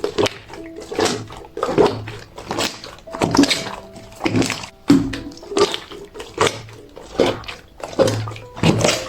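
Clear jelly slime being squished and pressed by hand, wet squelches repeating a little more than once a second, over soft background music.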